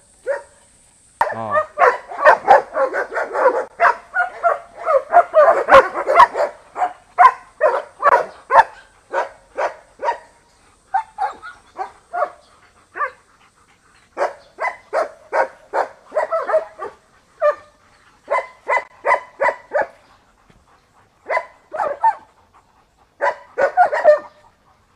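Several kennelled German Shepherds barking: a dense burst of overlapping barks from about a second in, then a run of single barks, about two a second, broken by short pauses.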